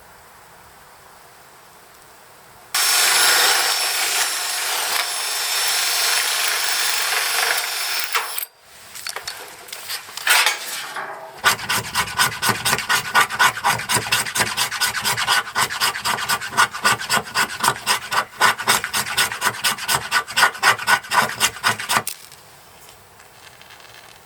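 Wood being sawn by hand: a steady harsh rasp for several seconds, then a long run of even back-and-forth saw strokes, about three a second, that stop near the end.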